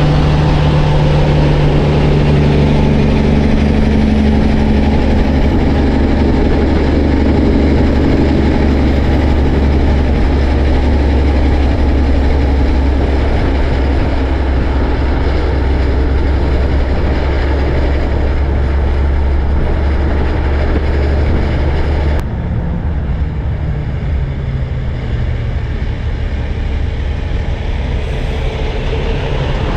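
Heavy diesel truck engine running with a deep, steady drone, then an abrupt cut about two-thirds of the way through to a slightly quieter stretch of truck and road noise.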